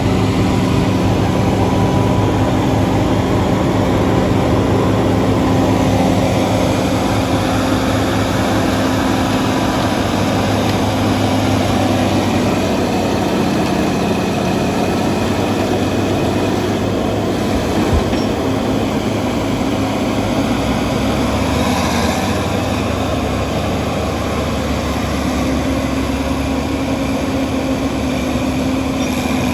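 Bulldozer diesel engine running, a steady heavy drone with a low hum that shifts slightly about two-thirds of the way through.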